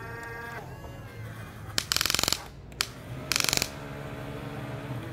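Huina RC toy excavator's electric motors whining as the arm and bucket move. Two short bursts of rapid, even ratcheting clicks from its gear drive come about two seconds and three and a half seconds in, the loudest sounds here.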